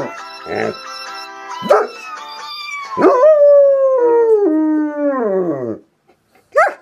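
German Shepherd howling with its head raised: short yips and howls, then a long howl of nearly three seconds that slides steadily down in pitch before breaking off, and a short rising yelp near the end.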